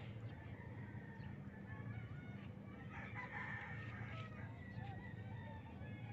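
A rooster crowing faintly, with other curved calls scattered through, over a low steady rumble.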